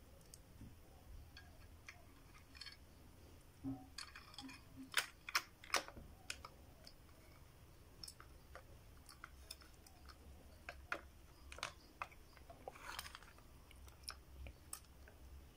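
Small scattered clicks and knocks of hard plastic as an action figure is handled and a clear plastic display-stand clip is fitted around its waist. Three sharper clicks come close together about five to six seconds in, and there is a brief rustle near the end.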